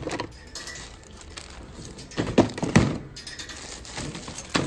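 Toiletries being dropped and set into a plastic storage bin in a wire shopping cart, knocking against the bin. There are a few sharp knocks, the loudest in a quick group about two and a half seconds in, and one more near the end.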